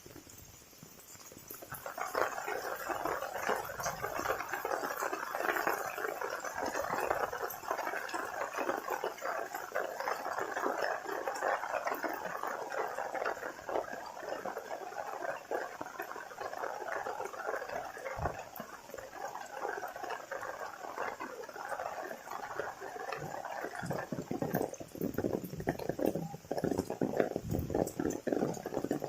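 Heavy rain falling, a dense crackle of pattering drops that grows louder about two seconds in.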